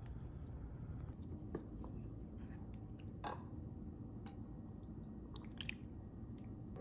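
Faint clicks and taps of a plastic ladle against the pot and bowl as miso soup is stirred and ladled out, over a low steady background noise.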